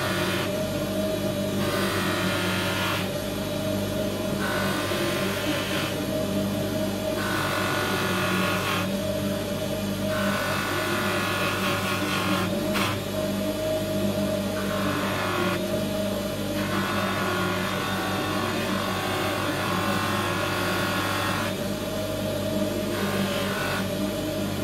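Bench grinder motor running with a steady hum, while a small metal part is pressed against the spinning wheel again and again. Each pass gives a higher grinding sound lasting one to several seconds, with short breaks between passes.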